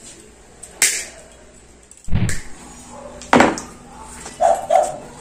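Metal wire whisk being pulled apart and cut with pliers: a few separate sharp clicks and knocks, two of them with a dull thud, about a second apart.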